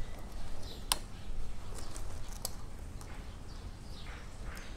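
Scattered small clicks and taps of buttons and knobs being handled on an amplifier board, with a few faint chirps and a steady low hum underneath.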